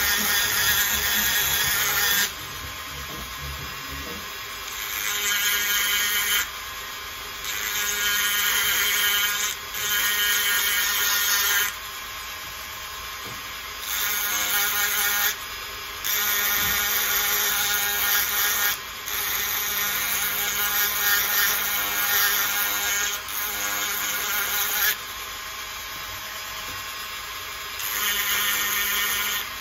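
Handheld rotary tool with a small burr running at a steady high whine while carving a coconut shell. It grows louder and rougher in stretches of a few seconds each time the bit is pressed into the shell, and drops back between passes.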